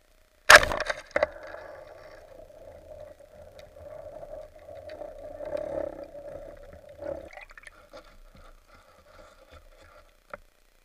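Speargun fired underwater at a bonito: one sharp, loud crack about half a second in and a smaller snap right after, followed by a continuous noisy hum that fades after about seven seconds, with a short click near the end.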